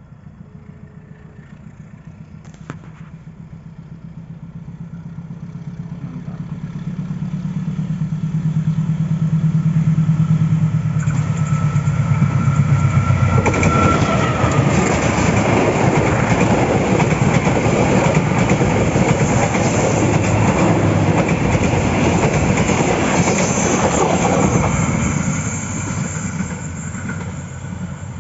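A train approaching and passing close by without sounding its horn. A low engine drone grows steadily louder for about twelve seconds, then gives way to the loud rumble and clatter of the wheels on the rails, which eases off near the end.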